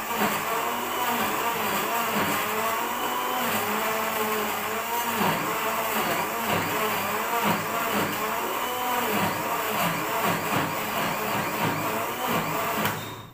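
Electric countertop blender running steadily, grinding green chillies into a paste, its motor pitch wavering up and down. It cuts off at the very end.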